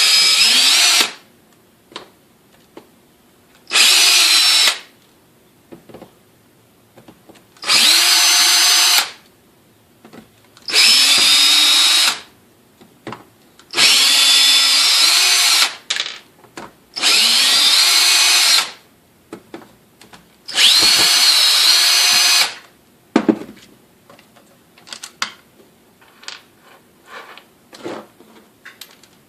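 Electric drill/driver backing out the stapler housing's screws in seven short runs of one to two seconds each, its motor whine rising as it spins up each time. A few light clicks follow near the end.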